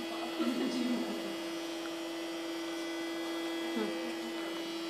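Steady electrical hum at one constant pitch from the lab's test equipment, with fainter steady overtones above it.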